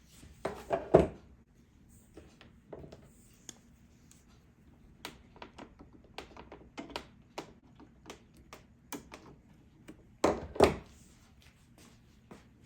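Hands working on the opened plastic Keurig coffee maker as the zip ties are worked off the water valve's lines: scattered small plastic clicks and taps, with two louder clusters of knocks about half a second in and about ten seconds in.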